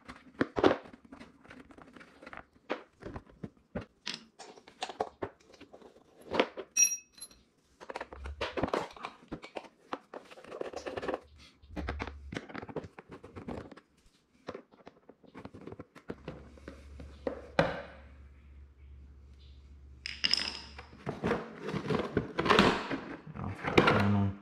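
Irregular clicks, knocks and rattles of hand tools and hard plastic as a footrest panel is worked off a Razor Dirt Quad ATV.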